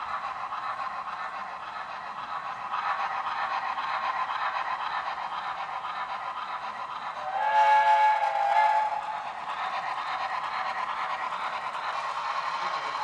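Model steam locomotive with a sound decoder running along the layout track with a steady running sound. About seven seconds in it sounds a chime steam whistle of several tones together, lasting about a second and a half.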